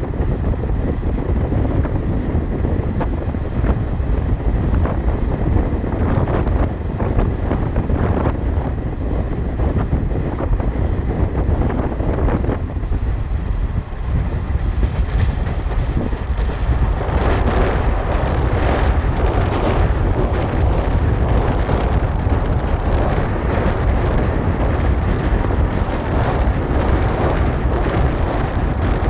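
Wind buffeting the microphone over the steady rumble of a moving train, as heard from its open window. About halfway through, the running noise grows harsher and more rattling as the train goes out onto the bridge.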